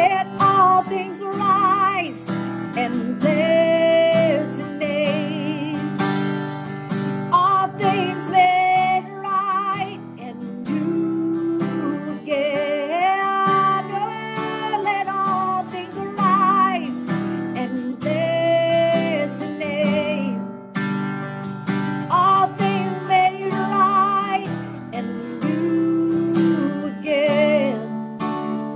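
A woman singing a slow worship song, with vibrato on long held notes, accompanying herself on a strummed acoustic guitar.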